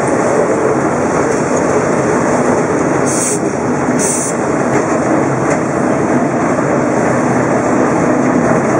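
Old wooden-bodied street tram running along the rails, heard from inside at the front: a steady rumble of wheels and running gear, with two short high hisses about three and four seconds in.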